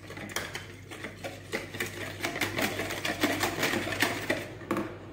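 Wire whisk beating a thin liquid batter by hand in a plastic bowl: rapid, rhythmic clicking and tapping of the wires against the bowl, stopping shortly before the end.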